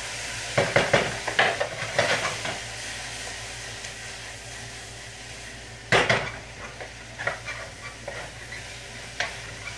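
Broccoli and onions sizzling in a wok, with a utensil knocking and scraping against the pan as it is stirred, the loudest clank about six seconds in.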